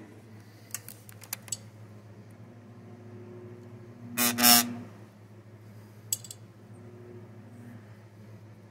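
Bench demagnetizer running with a steady low hum while a steel AR-15 firing pin is passed over it to remove a strong residual magnetic charge. There are a few small clicks near the start, then a loud, brief buzz about four seconds in as the pin meets the energised plate, and a click about six seconds in.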